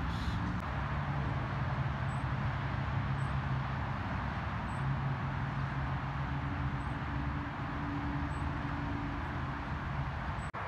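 Steady low motor drone over a constant rushing noise, like engine or traffic noise, with a brief dropout near the end.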